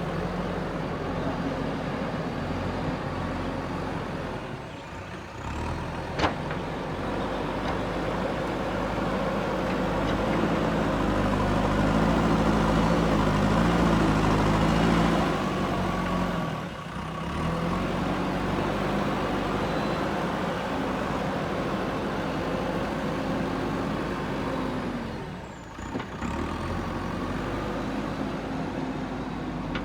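JCB 3DX backhoe loader's diesel engine running under changing load as the backhoe works, its note rising and falling and easing off briefly three times. A single sharp metallic clank comes about six seconds in.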